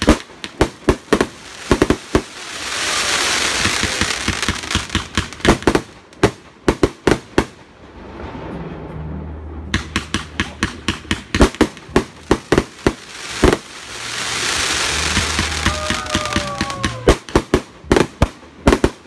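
Monkeys Go Ape 100-shot consumer salute cake firing: fast runs of loud sharp bangs, several a second, from the salute shells bursting. Between the runs a crackling sizzle swells up twice.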